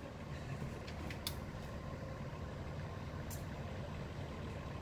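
Steady low rumble of an engine running at a distance, with a couple of faint clicks about a second in and near the end.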